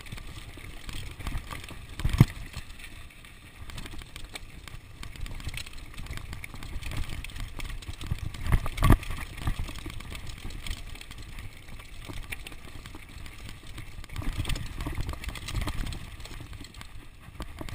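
Ellsworth Evolve mountain bike descending rocky trail at speed: tyres rolling over dirt and stones with the bike rattling over a steady low rumble, and sharp knocks about 2 seconds in and again around 9 seconds as it hits rocks and roots.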